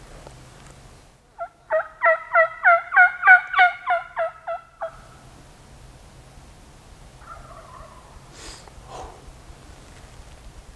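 A turkey calling: a run of about a dozen evenly spaced notes lasting about three and a half seconds, building in loudness and then fading.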